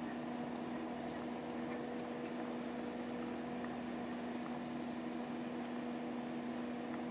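A steady machine hum with one low, even tone, with a few faint ticks over it.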